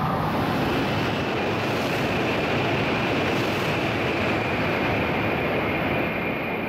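Kyushu Shinkansen bullet train passing through the station without stopping at about 260 km/h. A loud rush of air and running noise starts abruptly, holds steady for about six seconds under a thin high whine, then fades.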